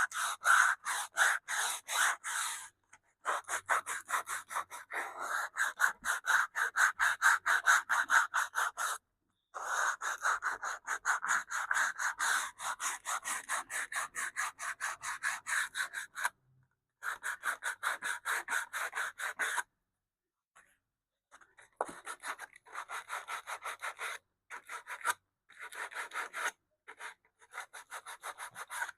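Canvas-backed sandpaper rubbed by hand back and forth along a groove in a wooden radio cabinet rail, about four quick rasping strokes a second. The strokes come in runs broken by short pauses.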